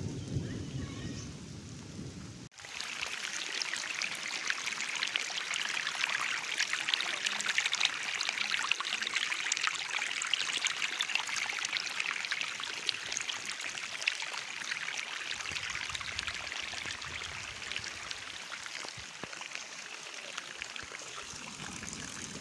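Heavy monsoon rain splashing down and rainwater running and pouring, a dense steady hiss full of fine patters. It starts with a deeper, duller rush, then changes abruptly about two and a half seconds in.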